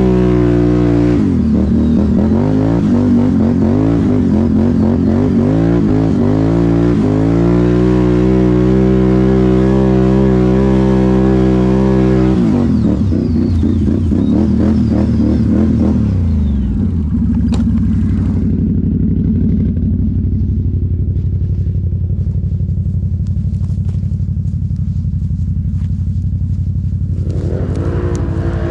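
Quad ATV engine revving up and down while riding, its pitch rising and falling repeatedly. About thirteen seconds in the revs drop away, and from about seventeen seconds it idles steadily, until the revs rise again near the end.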